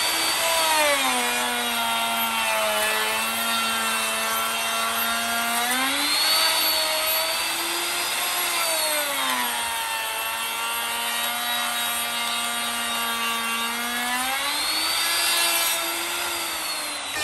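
DCA electric router running and cutting along the edge of a wooden board. Its whine drops in pitch as the bit bites into the wood about a second in and again around ten seconds, and rises back when the load eases, around six seconds and near the end.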